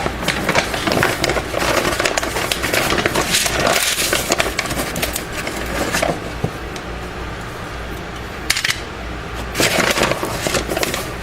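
Dense clicking, clattering and rustling of things being handled, quieter for a few seconds past the middle, over the steady hum of a room fan.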